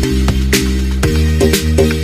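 Background music with a steady beat: deep sustained bass notes under regular drum hits about twice a second.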